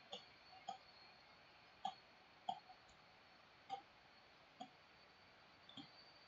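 Faint, irregular clicks of a computer mouse, about eight of them a half second to a second apart, against near silence.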